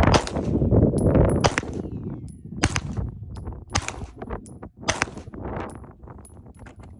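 Springfield Echelon pistol firing a string of about five shots, roughly a second apart, after a couple of seconds of loud running and movement noise.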